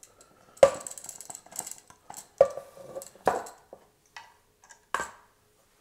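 Push-button lid of a plastic storage canister being opened, lifted off and set down on a wooden cutting board: four sharp plastic clicks and knocks spread over a few seconds, the loudest about half a second in.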